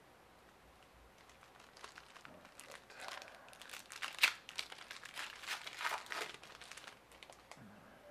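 Trading card pack wrapper being torn open and crinkled by hand. The crackling starts about two seconds in, is loudest midway and dies down about a second before the end.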